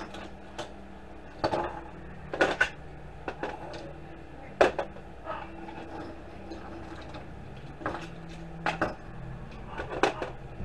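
Small DVD-drive motors set down and tossed onto a stainless steel scale platter: irregular metallic clinks and clacks, several sharp ones close together a couple of seconds in and another few near the end.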